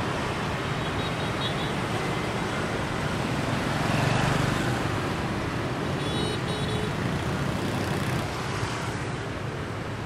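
Steady street traffic of many motor scooters and motorbikes streaming past, with a slight swell about four seconds in and two short high beeps about six seconds in.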